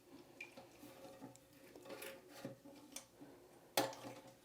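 Faint clicks and taps of plastic parts being handled as the cap of a Fluidmaster 400 toilet fill valve is worked loose, with a sharper click a little under four seconds in.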